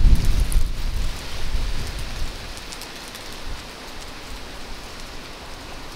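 Wind buffeting the microphone: a low rumble that gusts, then eases about two seconds in to a quieter steady hiss.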